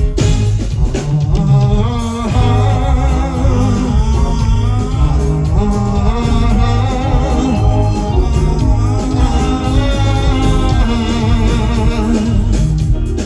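Live band music with voices singing over a steady beat.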